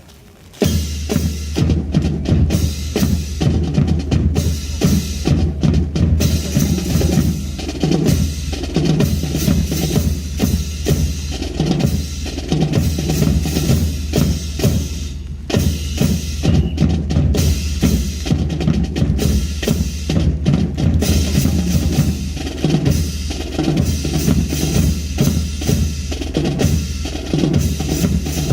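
Marching drum corps playing: rapid snare-drum strokes and rolls over steady bass-drum beats, starting suddenly about half a second in.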